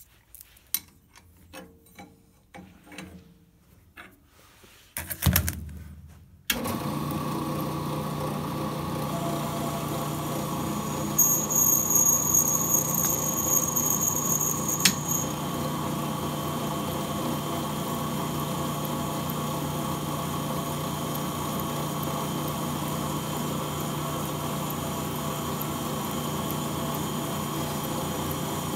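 Clicks and knocks of tools being handled, with a loud clunk, then a brake lathe's electric motor switches on about six and a half seconds in and runs with a steady hum. About four seconds later a high squeal starts and lasts about four seconds, ending in a click, as the cutting bit works the arbor face.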